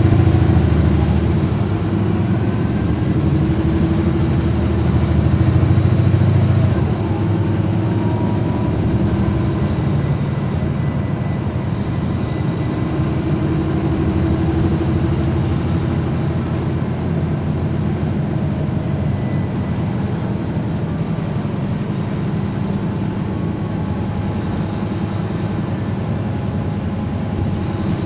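Caterpillar C13 ACERT diesel engine of a NABI 416.15 transit bus running, heard from on board. It is louder in the first second and again around six seconds in, then runs steadier and a little quieter.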